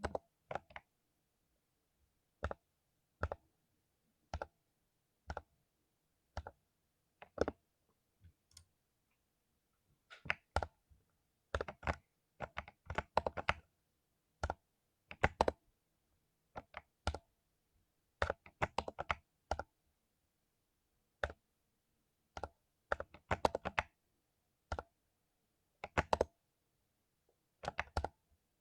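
Mechanical keyboard with lubed Cherry MX Silver linear switches being typed on. It starts with single keystrokes about a second apart, then runs into quick bursts of fast typing with short pauses between.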